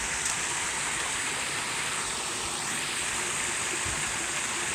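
Steady running water, an even rushing and splashing that does not change.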